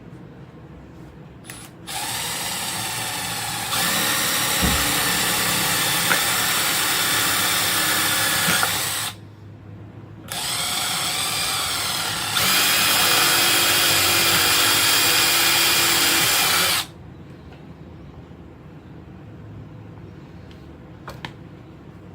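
Power drill running in two bursts of about seven seconds each, each one stepping up to a faster, louder speed partway through, as it drills straight through a part.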